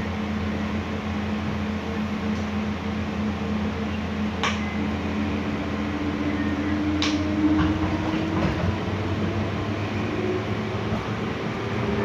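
Interior running noise of a moving electric commuter train car: a steady hum, with a motor whine that rises slowly in pitch over the second half. Two sharp clicks come about four and a half and seven seconds in.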